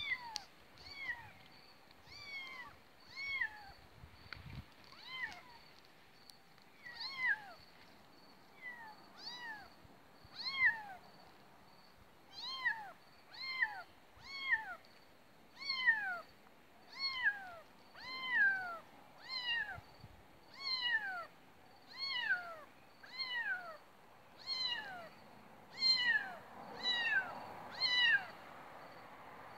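Cat meowing over and over: short, high meows that each fall in pitch, about one a second, louder through the second half.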